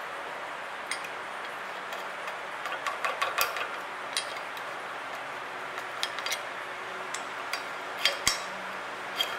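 Small, sharp metal clicks and scrapes, scattered and irregular, with a busy run about three seconds in and the loudest pair of clicks near the end. It is a steel tool prying and tapping at the bimetallic heat-riser spring and its shaft on a cast-iron exhaust manifold, working the spring off. A steady hiss runs underneath.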